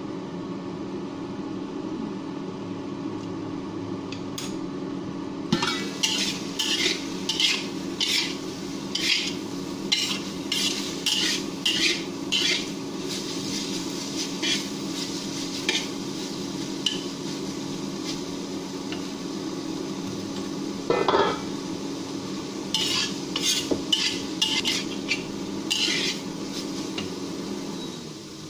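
A steady hum from an induction cooktop. From about five seconds in, a steel spatula scrapes and clanks against a wok as sliced green chili peppers and meat are stir-fried, with a light sizzle. The hum stops near the end as the cooktop is switched off.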